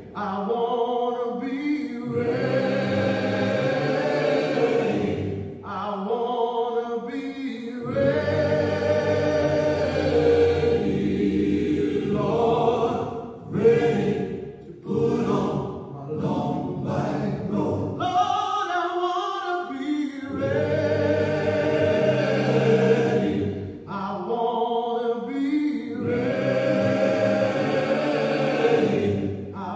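Choir singing a gospel-style piece in long sung phrases, with short breaks between phrases.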